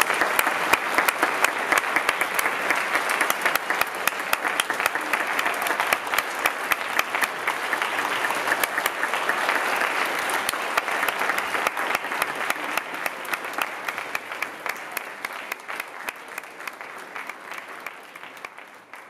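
Audience applauding: a dense, steady patter of many hands clapping that gradually fades out over the last few seconds.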